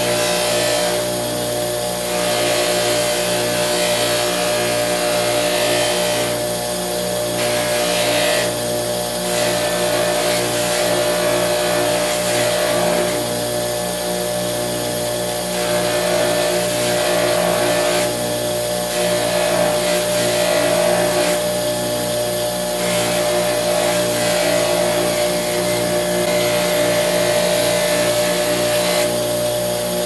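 Old electric bench buffer motor running with a steady hum while a pocket-knife blade is held against its small spinning wheel. A hissing rush of metal on the wheel swells and eases every few seconds as the blade is pressed on and lifted off.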